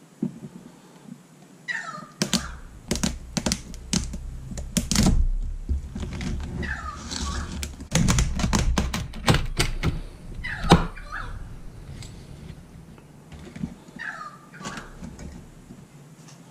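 Cleaver chopping through the shells of Balmain bugs (slipper lobsters) on a wooden chopping board: a run of sharp cracks and knocks with bits of crunching, busiest in the middle and sparser near the end.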